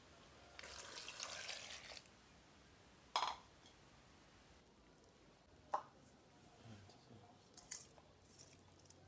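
Water poured briefly into an aluminium saucepan of peeled matooke, then two sharp knocks and a few light clicks.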